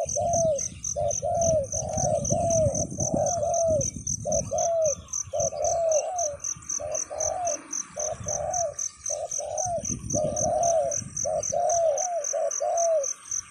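A wild dove cooing in a long, rapid series of short arched notes, about two a second, with a steady high pulsing chirp running above it and bursts of low rumble underneath.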